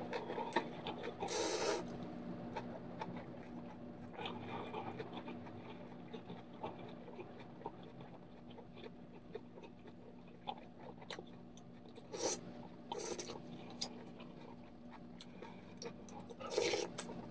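A person slurping ramen noodles off chopsticks about a second in, then chewing with small wet mouth clicks. Several more short slurps come near the end, including broth sipped from a spoon. A steady low hum runs underneath.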